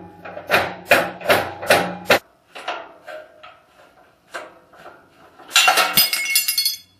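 Repeated hard knocks on the metal parts of an old Shopsmith being dismantled, about two or three a second for the first couple of seconds, then a few fainter knocks. Near the end comes about a second of dense metallic clattering.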